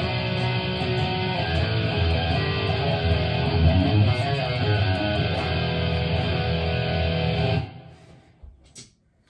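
Harley Benton Fusion-T electric guitar with EMG pickups played through a Line 6 Helix Stomp modeller with a distorted tone; the playing stops abruptly near the end.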